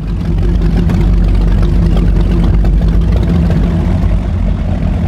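Performance powerboat engines running steadily at low revs: a loud, deep, even engine sound with no revving.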